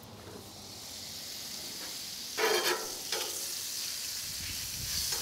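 Butter sizzling as it melts on a hot flat-top griddle, a steady hiss as it is spread with a metal spatula. There is a short louder sound about two and a half seconds in.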